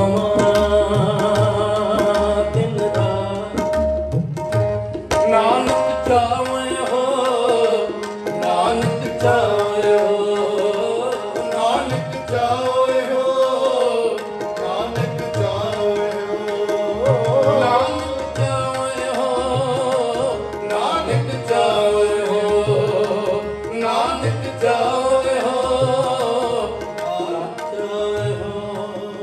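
Sikh kirtan: harmonium and tabla keep a steady rhythm under male voices singing a hymn. A held harmonium note stands out at first, and the singing comes in about five seconds in.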